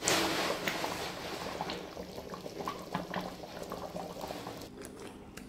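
Thick pork and taro-flower curry boiling in a steel kadai, with many small irregular bubble pops. It is loudest at the start and slowly grows quieter.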